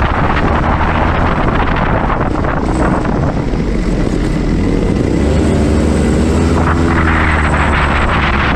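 Rotax Max 125cc two-stroke kart engine running hard under race conditions, heard from the onboard camera with heavy wind noise on the microphone. The engine sound eases a few seconds in through a corner and builds again as the kart drives out of it.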